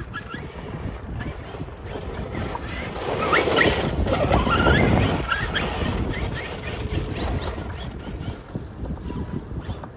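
Losi DBXL-E 2.0 electric RC buggy driving, its 8S brushless motor whining. The whine swells and rises in pitch between about three and five seconds in, then falls away again.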